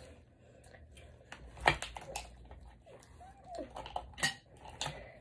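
Scattered clicks and clinks of tableware during a meal: a fork against a plate and lobster shell being handled, with the sharpest click about one and a half seconds in.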